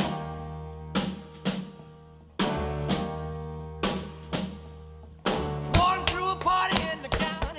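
Backing music: loud sustained chords struck with a drum hit every two and a half to three seconds, each fading away, with short drum accents between them. From about five seconds in the music turns busier, with a sliding melody and quick hits.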